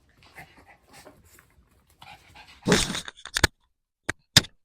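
Pomeranian dogs making faint, short sounds. About two and a half seconds in comes a loud rustling burst, then several sharp clicks near the end.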